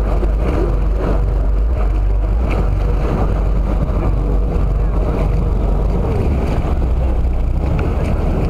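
Passenger boat under way: a steady low engine drone with rushing noise from wind and water.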